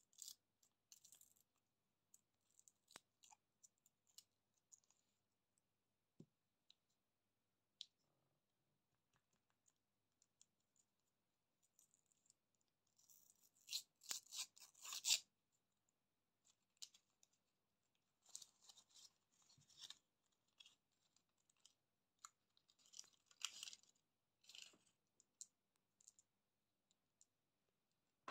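The wrapper of a roll of Mentos being peeled and torn open by hand: scattered small crackles and clicks, with louder crinkling rustles about halfway through and again in the last third.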